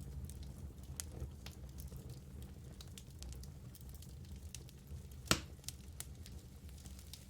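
Wood fire burning in a fireplace: a steady low rumble with scattered small crackles and one louder pop about five seconds in.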